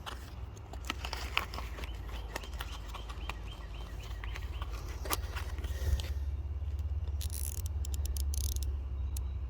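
Scattered light clicks and knocks of hand tools being handled and sorted, with a busier run of clicks a little past the middle. Under them are a steady low rumble and faint repeated chirping in the first half.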